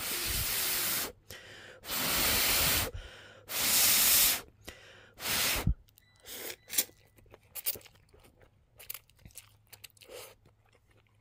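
Instant ramen noodles slurped from the cup in four long, loud slurps over the first six seconds, then quieter chewing with small clicks.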